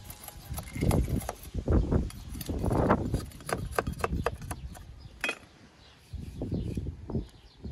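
A knife and a cleaver working a wooden stick against a tree-stump block: scraping, low rumbling handling noise, and a few sharp wooden knocks and clicks.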